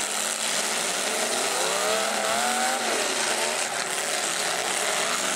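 Full-size demolition derby cars' engines revving hard as they push against each other, with a spinning wheel throwing tyre smoke. One engine's note wavers up and down for about a second in the middle, over a steady dense din.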